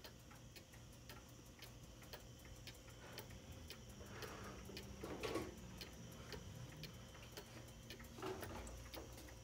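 Antique Black Forest cuckoo clock ticking steadily and faintly, about two ticks a second from its pendulum escapement. A few short soft rustling noises come in around the middle and near the end.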